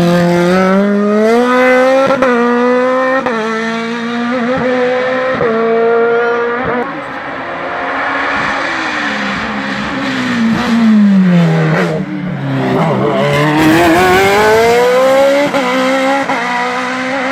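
Race car engines at full throttle on a hill-climb: a sports prototype accelerates out of a hairpin, its pitch stepping up through quick upshifts as it pulls away. About ten seconds in, an engine note falls as a car brakes and changes down, then climbs again as it accelerates.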